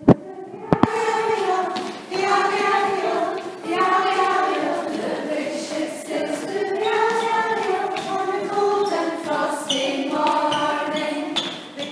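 A group of girls and women singing a ring-game song together on one melody while they circle hand in hand. Two sharp clicks come right at the start.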